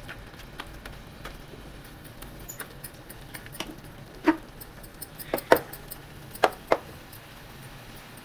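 A metal spatula stirring and pressing a wet potato and meat mixture in a frying pan, with scattered knocks and scrapes of the spatula against the pan. The loudest is a run of about five sharp knocks in the second half.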